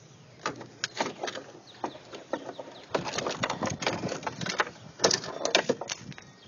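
Irregular clicks, knocks and rustling of close handling noise, thickest in the middle, as parts of a gutted electric organ are moved about.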